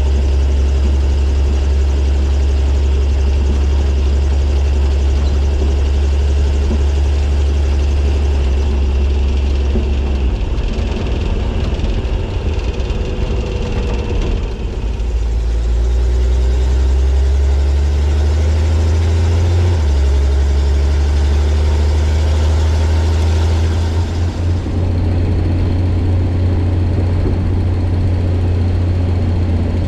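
1941 Chevrolet truck driving down the road, its engine running with a steady low drone that shifts about ten and twenty seconds in.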